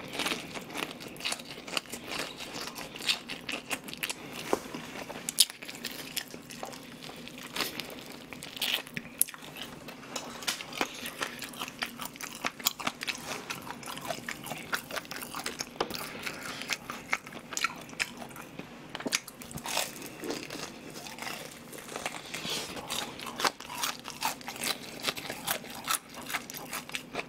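Close-miked biting and chewing of crispy fried chicken: a steady, irregular run of short, sharp crunches.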